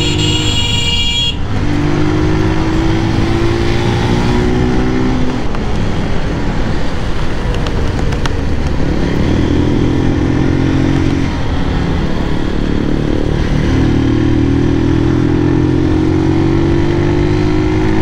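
Motorcycle engine pulling in gear, its pitch rising slowly in several stretches with short breaks between, its silencer noisy, over a steady rush of wind. A horn sounds briefly at the very start.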